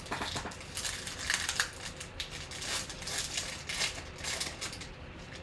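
Foil wrapper of a 2021 Panini Prizm football card pack being torn open and peeled back by hand: a run of crinkling and tearing with many sharp crackles.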